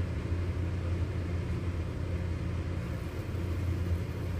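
A steady low machine hum with a faint hiss over it.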